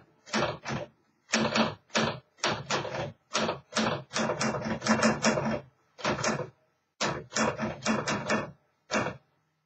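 1950 Smith Corona Clipper manual portable typewriter being typed on: sharp key strikes in quick, irregular runs with short pauses, stopping about nine seconds in.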